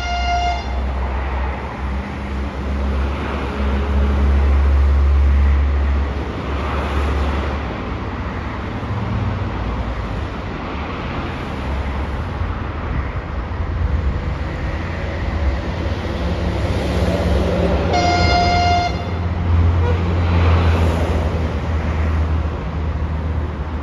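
TU10 narrow-gauge diesel locomotive approaching with its diesel engine running in a low, rising and falling rumble. It sounds a short, high, single-note horn blast right at the start and another, about a second long, later on.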